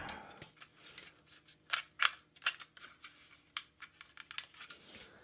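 Irregular light clicks and taps of hands handling the opened Dell OptiPlex 3080 Micro's RAM module and plastic internal parts, with a few sharper clicks among them.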